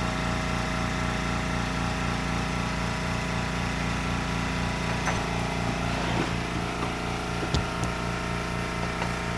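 Air compressor running steadily, its motor and piston pump drawing the tank back up after air use. A few light clicks sound in the second half, with one sharper knock a little after seven seconds in.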